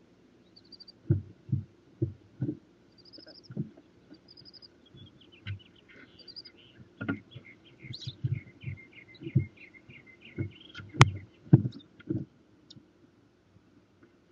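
Barn owl heaving to cough up a large pellet inside its nest box: an irregular series of dull thumps and bumps, with faint short high chirps, a run of small ticks and one sharp click about eleven seconds in.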